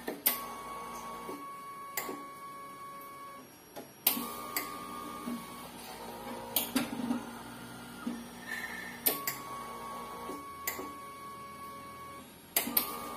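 Mindray BC-2600 hematology analyzer running its clean cycle: sharp mechanical clicks every one to three seconds, with stretches of a steady high whine and a lower hum from its internal pumps and valves in between.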